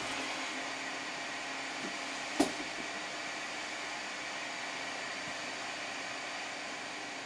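Multi-colour 3D printer running with a steady whir of fans and motors, with one sharp click about two and a half seconds in.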